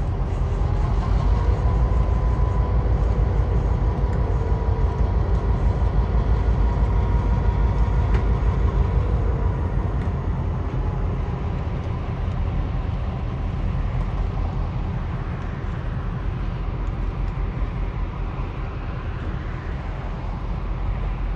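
Three TasRail diesel-electric locomotives (TR12, 2009 and 2054) running coupled as light engines, with no train behind them, passing and drawing away: a steady low diesel rumble that eases off in the second half.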